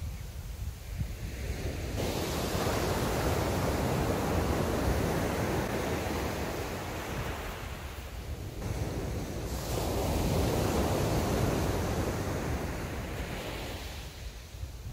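Sea surf breaking and washing up the shore, with wind on the microphone. The wash swells up twice, each time for several seconds.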